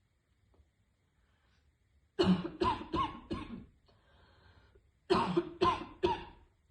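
A woman coughing in two fits: four coughs in quick succession about two seconds in, a short breath, then three more coughs near the end. It is a heavy vaper's smoker's cough.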